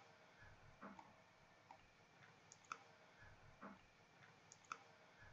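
A handful of faint single clicks of a computer mouse, spaced about a second apart, over near silence.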